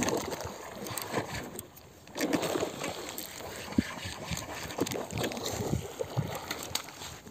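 A hooked snakehead (murrel) thrashing at the water's surface as it is reeled in toward the bank, making irregular splashes and sloshes. There is a short lull about two seconds in.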